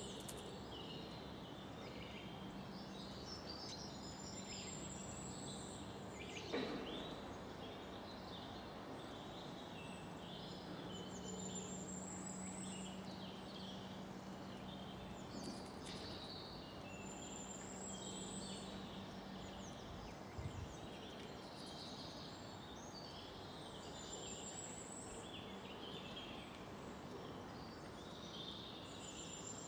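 Small birds singing, with many short chirps and one high, rising call repeated every four to five seconds. A faint steady low hum runs under them for much of the time.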